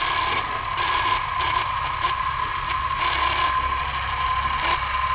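Film projector sound effect: a steady mechanical whirring clatter with a constant whine.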